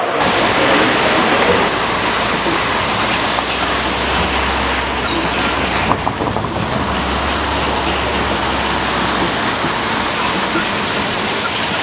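Road traffic on rain-wet streets: a steady hiss of tyres and rain with a low vehicle rumble that fades about nine and a half seconds in.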